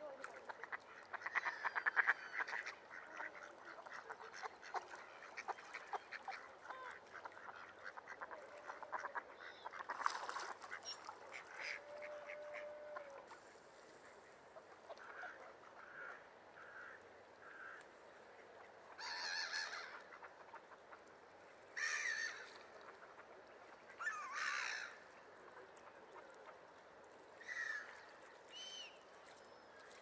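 Mallards quacking and calling on the water. There is a dense, busy chatter of many calls for the first third, then a short run of quiet calls and several louder single quacks a couple of seconds apart.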